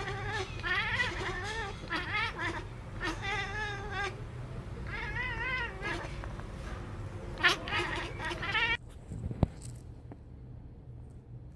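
A cat yowling in a string of long, wavering calls, which cut off abruptly about nine seconds in.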